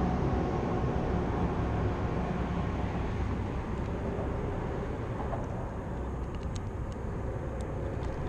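Steady low rumble of road traffic on the bridge overhead, with a few faint ticks from about halfway in.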